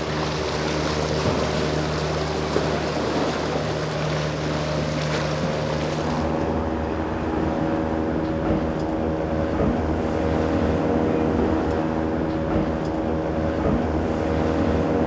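Motorboat engines running steadily over a wash of waves and wind. About six seconds in, the hiss of the water thins out and a higher engine tone joins the lower one.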